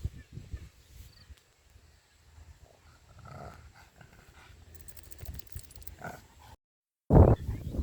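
Pug dog making short, scattered vocal sounds. The sound drops out completely for about half a second near the end, then a sudden loud sound starts.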